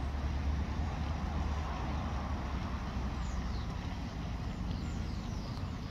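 A steady low rumble of wind buffeting the microphone in an open outdoor arena. A few faint, high, falling bird calls come in from about halfway through.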